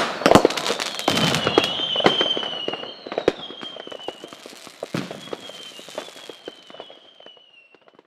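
Fireworks going off: a loud bang at the start, then dense crackling and popping that thins out and fades away. A high whistle sounds through the crackling from about a second and a half in, sinking slightly in pitch.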